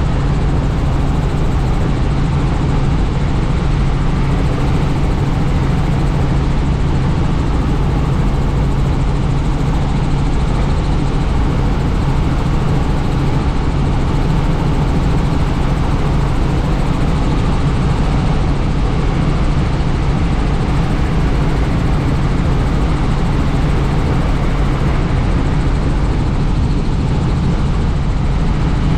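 Helicopter in flight heard from on board: steady rotor and turbine noise with a constant low hum and rushing air, unchanging throughout.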